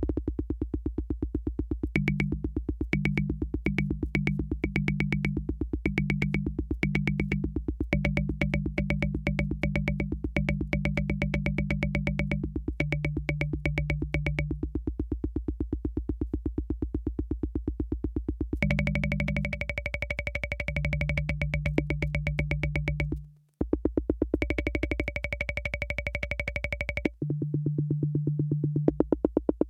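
Univox drum machine running a fast electronic pattern: a rapid, even ticking pulse with a low synthetic tone stabbing on and off over it. The low part drops away for a few seconds about halfway through, then returns, and the whole pattern cuts out for a moment about 23 seconds in before carrying on.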